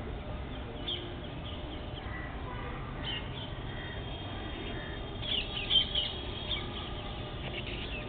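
Green parakeets giving short, high chirping calls, a few scattered early and a quick, louder cluster about five to six seconds in, over steady low background noise.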